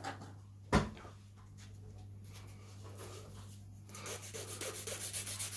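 A sharp knock about a second in, then from about four seconds in a nail file rubbing in quick back-and-forth strokes across the free edge of a wrapped artificial nail, filing it down to shape.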